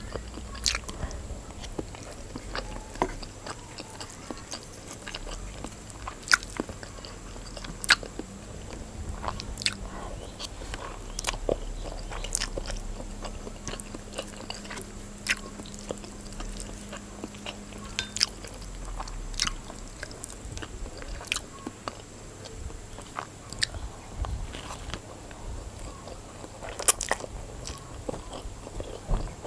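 Close-miked eating of instant noodles: chewing and biting with short, irregular sharp mouth clicks and smacks.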